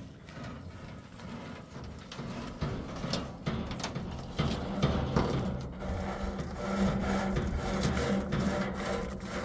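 Rope being drawn and rubbed across a plastic-wrapped sack and a metal truck bed while it is tied down, in repeated scratchy rubbing strokes. A low hum comes in and grows louder about halfway through.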